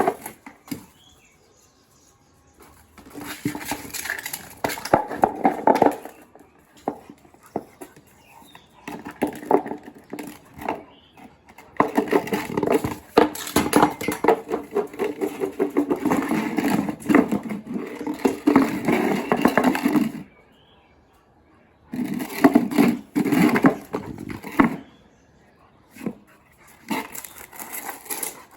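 A Boerboel dog playing with a noise-making toy: bursts of busy noise lasting a few seconds each, separated by short pauses.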